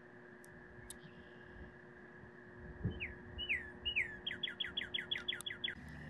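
Northern cardinal singing. About halfway in come three slurred, falling whistles, then a fast run of about ten short falling notes, roughly seven a second, ending just before the close.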